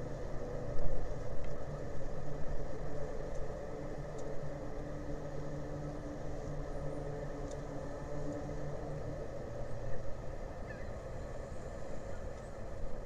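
Steady low engine drone with a constant hum. A second, higher hum joins for a few seconds in the middle.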